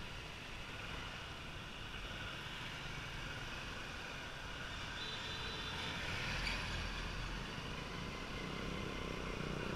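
Motorbike and traffic engines running steadily, growing a little louder near the end.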